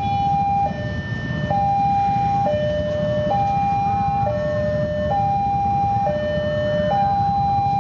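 Railway level-crossing warning alarm sounding a two-tone hi-lo signal, switching pitch about once a second, warning that a train is approaching.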